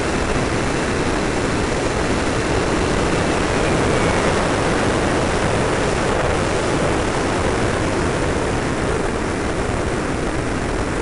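Steady rushing drone of a radio-controlled model F-86 Sabre jet in flight, heard from a camera mounted on its canopy: the model's power unit mixed with airflow over the airframe. A faint whine sinks slightly in pitch in the first few seconds.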